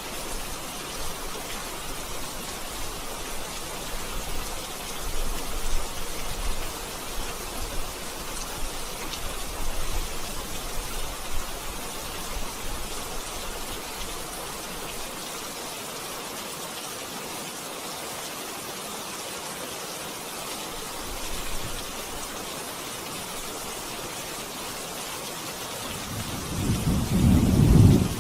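Steady rain falling, with low rumbles of thunder in the first half and a louder, deep thunder rumble near the end.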